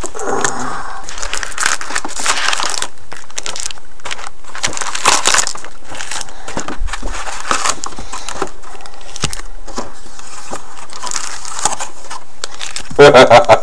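Wrapped hockey card packs crinkling and rustling as they are pulled one after another out of a cardboard box and stacked, with irregular scrapes and shuffles.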